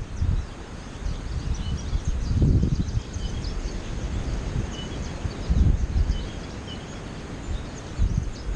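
American goldfinches giving many short, high chirping calls, over wind buffeting the microphone in gusts.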